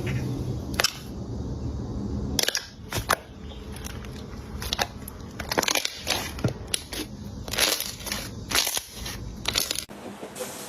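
Slime being squeezed and poked by hand, giving a string of irregular crackles and pops. A steady low hum lies under it for the first two seconds or so.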